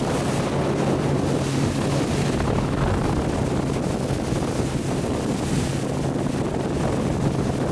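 A small motorboat running at speed through choppy water: a steady engine drone under heavy wind buffeting on the microphone and the rush and splash of spray thrown off the bow.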